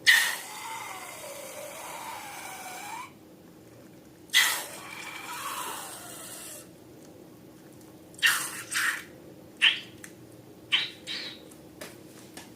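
Rubber balloon squealing: two long squeals with a wavering, falling pitch, each starting suddenly, then several short squeaks near the end.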